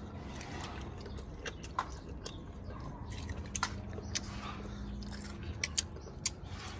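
Children biting and chewing tender green mango slices coated in chili sauce: faint scattered crunches and wet mouth clicks.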